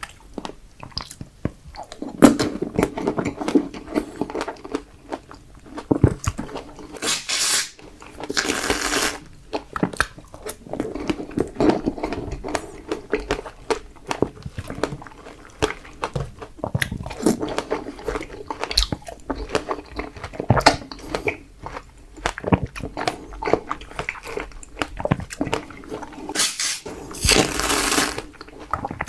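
Close-miked eating of fresh strawberries: bites and wet chewing, with many small irregular crunchy clicks.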